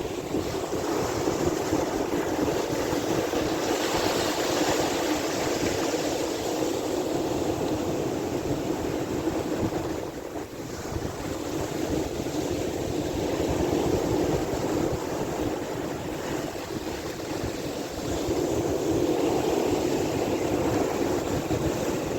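Sea waves with wind, a steady rushing that swells and eases several times, with a short lull about halfway through.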